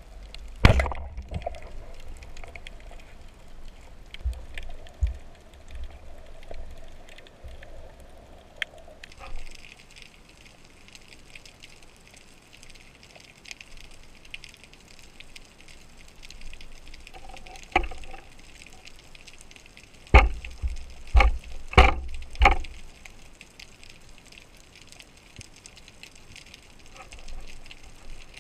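Underwater recording from a diving camera: a steady hiss broken by sharp knocks, one about a second in, a few around four to five seconds in, and a run of four near the twenty-second mark.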